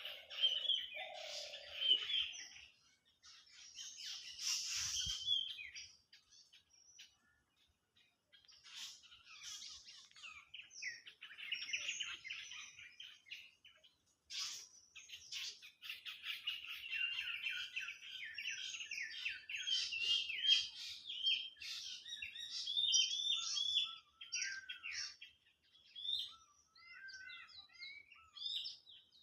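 Several songbirds chirping and singing in quick, high-pitched bursts with short pauses between phrases. A long run of rapid chirping comes in the middle, and a few sliding notes come near the end.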